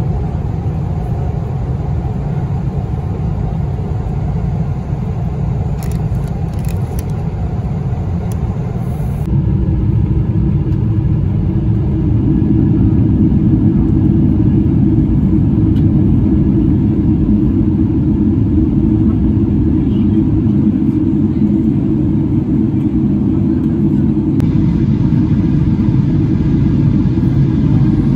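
Steady, loud low rumble inside the cabin of a Boeing 777-300ER in flight. About nine seconds in the sound shifts abruptly and grows louder, with the deeper part of the rumble thickening a few seconds later.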